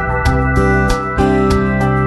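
Background music with sustained chords over a steady beat.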